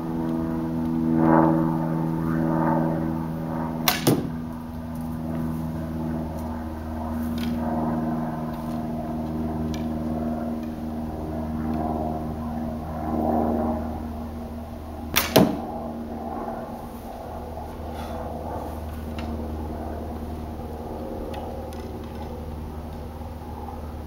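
Osage orange selfbow shot twice, about 4 and 15 seconds in. Each release gives a sharp crack of the bowstring, with a second crack close behind. A steady low hum runs underneath.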